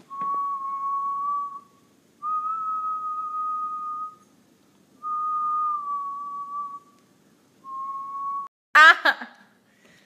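Goldendoodle puppy whining in four long, steady, high-pitched whines with short pauses between, then a sharp, loud yip about nine seconds in.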